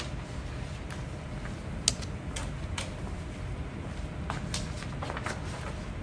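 A person hiccuping: one sharp hiccup click about two seconds in, with several fainter clicks around it over a low steady rumble.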